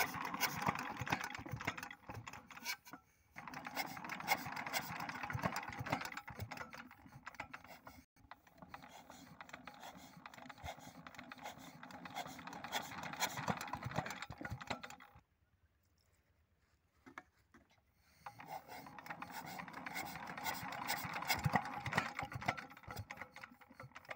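Old Petter diesel water-pump engine being hand-cranked: a fast mechanical clatter of the crank and moving parts, coming in spells. It stops briefly about three and eight seconds in and pauses for about three seconds past the middle.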